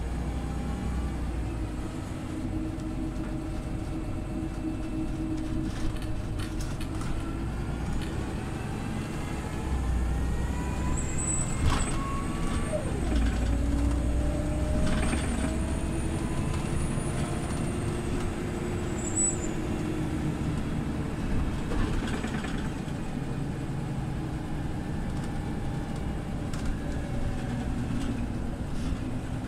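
Scania OmniLink CL94UB city bus under way: its diesel engine running, with pitch rising and falling as it speeds up and changes gear, and occasional knocks and rattles. A thin high whine sounds for several seconds in the middle.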